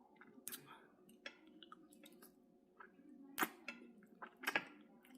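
A person chewing food close to the microphone: scattered wet mouth clicks and smacks, with a few sharper crunchy bites about half a second in and again around three and a half and four and a half seconds.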